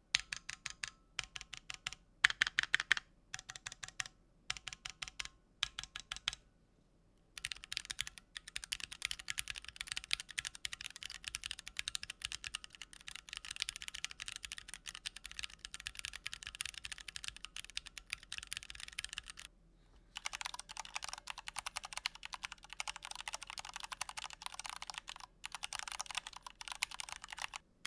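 Typing on full-aluminium custom mechanical keyboards: the Keychron Q1 with factory-lubed Gateron Phantom switches, and another full-aluminium board for comparison. Short spaced groups of keystrokes come first, then fast continuous typing. After a brief break about 20 seconds in, a second run of typing follows that sounds thinner in the low end. The Q1's stabilizers make no wire rattle, but its aluminium case gives a fairly strong hollow ring, which comes from the empty space under the gasket-mounted PCB.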